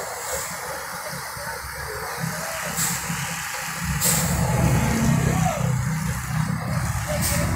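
Diesel engine of a UD Quester heavy tractor unit working under load as it pulls a crane on a lowboy trailer, its low rumble growing louder about halfway through, with a few short hisses of air.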